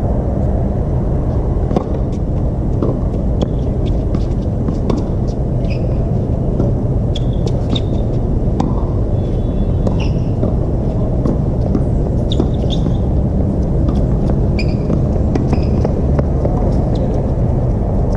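A singles rally on a hard tennis court: scattered sharp racket-on-ball hits and brief shoe squeaks, over a loud, steady low rumble.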